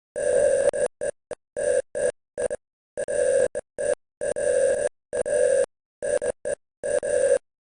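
Morse code beeps: a mid-pitched buzzy tone keyed on and off in an uneven run of long dashes and short dots, about fifteen in all, with dead silence between them.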